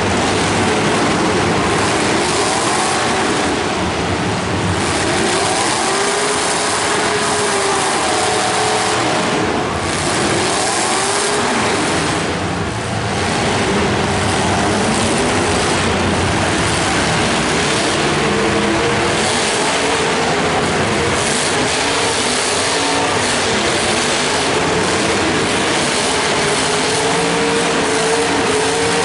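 Many demolition derby cars' engines running and revving together, a dense, continuous din of overlapping engine notes rising and falling as the drivers rev and push against each other.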